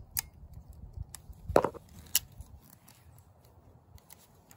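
Ratcheting crimping tool being squeezed shut on a solar connector's metal contact pin to crimp it onto a cable: a few sharp, irregular clicks, the loudest about one and a half seconds in, over a low rumble.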